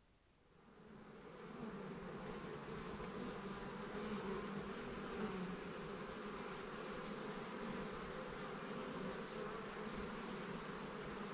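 Bees buzzing steadily, fading in about a second in.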